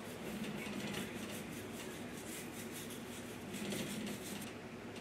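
Toothbrush scrubbing teeth in a quick run of soft brushing strokes that stops near the end.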